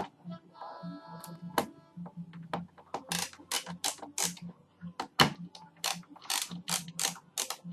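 Phillips screwdriver backing out the captive screws of an iMac G5 power supply: a series of sharp ratchet-like clicks, two or three a second, with a brief squeak about a second in.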